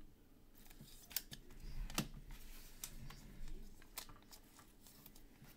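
Trading cards and their packaging being handled, with several faint sharp clicks and light rustling.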